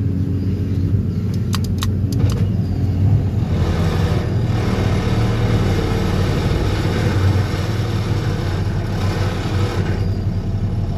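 DPD350T vibro hammer on an excavator driving a steel sheet pile: a steady, loud, deep hum, with a few sharp metallic clicks about two seconds in. From about three and a half seconds to ten seconds the rumble grows harsher as the hammer works the pile, then eases off.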